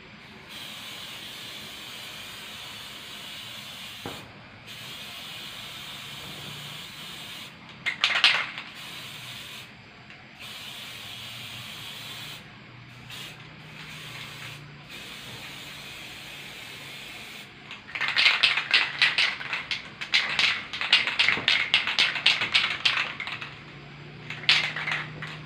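Aerosol spray-paint can hissing in sprays of a few seconds each, with short breaks between them. It gives a loud short burst about a third of the way in, then a rapid run of short, louder bursts over several seconds near the end.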